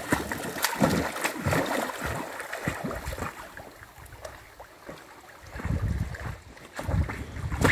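Pool water splashing and sloshing as a Portuguese Water Dog in a life jacket paddles, busiest for the first few seconds and then calmer, with a low rumble of churning water near the end.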